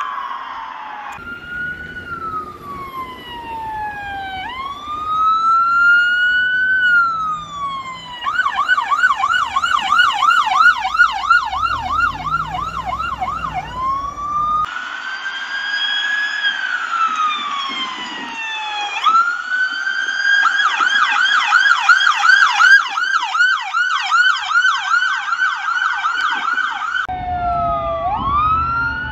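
Emergency vehicle electronic sirens across several edited clips. Each clip starts on a slow wail that falls and rises, then switches to a fast yelp of about three sweeps a second, and each clip cuts off abruptly into the next. A low rumble of engine and traffic sits under some of them.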